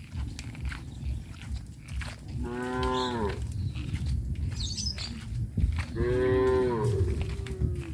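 Cows mooing twice: a short moo about two and a half seconds in, then a longer moo about six seconds in that sinks lower in pitch as it tails off.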